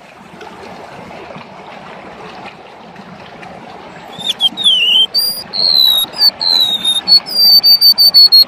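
A steady background hiss, then from about four seconds in a golden-bellied gerygone (remetuk laut) singing loud, high, drawn-out whistled notes, several sliding down in pitch.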